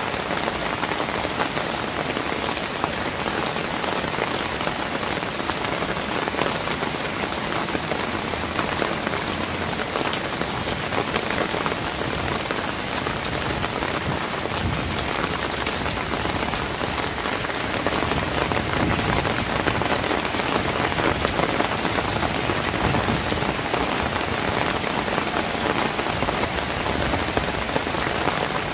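Steady rain falling on wet pavement and roofs, a dense even patter that swells slightly about eighteen seconds in.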